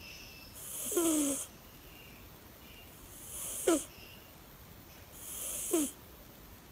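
Sleeping cat snoring: three breaths about two seconds apart, each a hissy draw ending in a squeaky whistle that falls in pitch.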